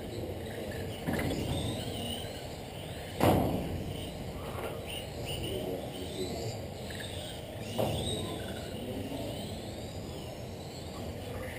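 Electric RC cars racing on an indoor carpet track, the whine of their motors rising and falling as they speed up and slow down. Three knocks cut through, the loudest about three seconds in.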